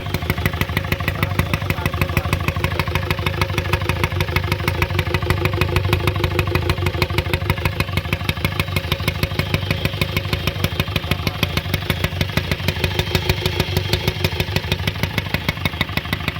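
Ford Figo 1.4 TDCi four-cylinder diesel engine idling with a steady, rhythmic knocking clatter, several sharp knocks a second. The mechanic calls the engine sound very bad and has found a failed gasket.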